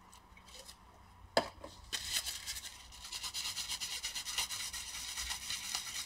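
Alcohol-moistened wipe rubbing over the laptop's GPU and CPU chips on the motherboard, cleaning off old thermal paste. A single click about a second in, then steady, uneven scratchy rubbing from about two seconds in.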